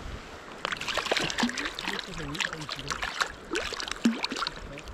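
Water splashing and gurgling around a hand as a trout is released into a shallow stream, with the fish kicking at the surface and a sharper splash about four seconds in.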